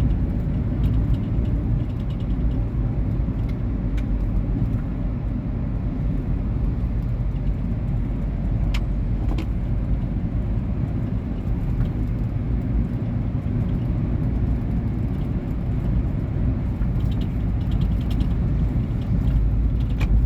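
Inside a 2019 Volkswagen Polo Vivo while driving: steady engine and road rumble, with scattered light clicks of a small rattle from the passenger seat, which has worked loose from repeated reclining.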